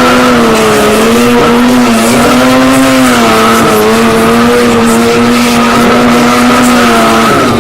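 Stunt motorcycle engine held at high revs during a trick, its note wavering slightly, then dropping off near the end.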